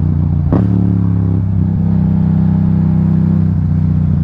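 Motorcycle engine running steadily as the bike slows, shifting down from fourth to third gear, with a brief sharp sound about half a second in.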